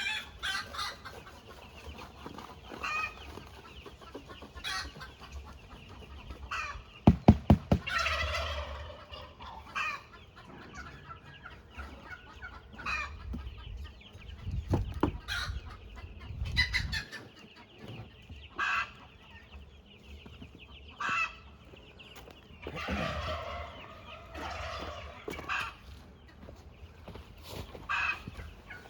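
Domestic fowl clucking and calling on and off, with a quick run of sharp, loud knocks about seven seconds in.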